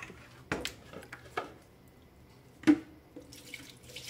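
A handful of light drips and taps from a plastic bucket of thick homemade liquid soap and its wooden stirring stick, spread over a few seconds, the loudest plop about two and a half seconds in.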